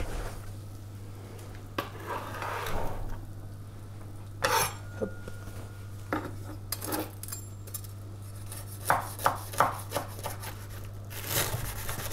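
A metal spatula scraping and knocking against a non-stick baking tray as grilled croque-monsieurs are lifted off, then a chef's knife cutting through a crisp toasted croque on a bamboo cutting board. The sound comes as a handful of separate short scrapes and knocks, with a quick cluster of strokes towards the end.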